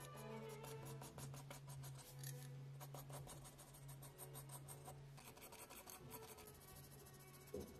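Quick, rapid scratching of a mechanical pencil's 2B graphite lead on sketch paper, many short strokes in a row laying in fur texture, densest in the first half. Faint background music runs underneath.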